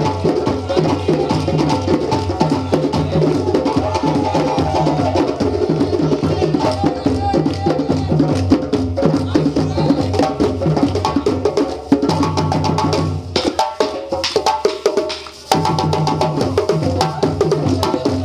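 West African djembe drum ensemble playing a fast, driving Malinke rhythm, with hand claps and sharp strikes over steady low drum strokes. The drums drop away for about two seconds, then come back in together.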